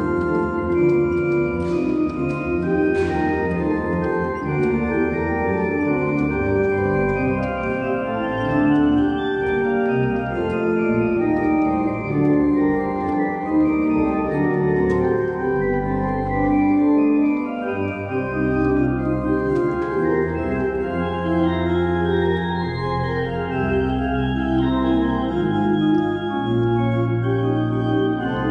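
Pipe organ playing, several lines moving at once over sustained low pedal bass notes.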